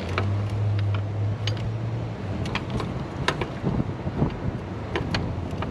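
Irregular clicks and light metallic taps of hand tools working on the high-pressure oil line fittings of a 7.3 Powerstroke diesel, over a steady low hum for the first couple of seconds.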